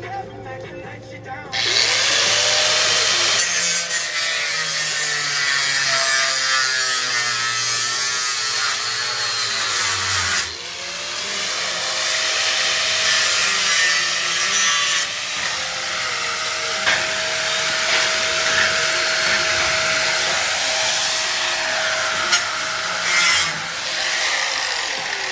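Power saw cutting wood: the motor winds up, runs through a cut, dips briefly about ten seconds in, winds up again for more cutting and winds down near the end.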